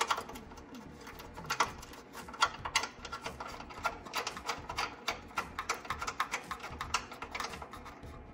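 Irregular small metallic clicks and taps, several a second, as a bolt with a crimped ring terminal on it is turned back in by hand to ground a wire.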